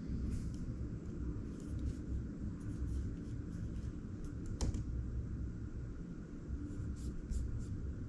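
Scattered light clicks of MacBook keys and trackpad being pressed, in small clusters with the sharpest click a little past halfway, over a steady low rumble.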